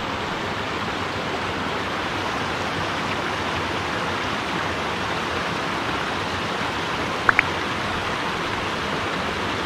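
Small rocky mountain stream running over low cascades: a steady rush of water. Two short high chirps close together about seven seconds in.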